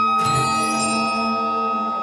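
Contemporary chamber-orchestra music for clarinet, strings and percussion: a single struck, bell-like percussion note just after the start rings out over a long held high note and sustained lower string tones.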